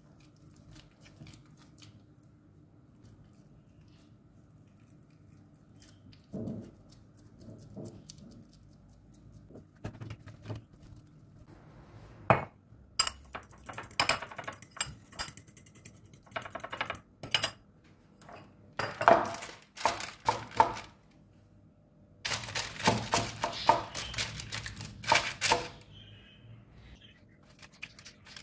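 Kitchen clatter of dishes and utensils being handled, knocked and set down. After a quiet start come scattered knocks, then several dense runs of clicks and taps over the second half.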